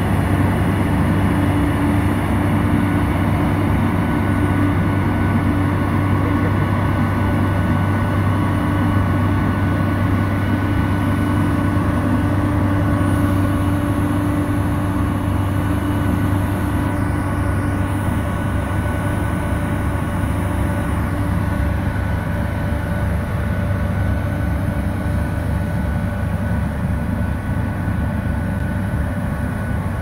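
Diesel engine and snowblower of a Volvo wheel loader running steadily under load as it blows snow into a dump truck, with the truck's engine alongside. A steady low drone with a higher hum that fades out a little past halfway, the whole growing slightly quieter toward the end.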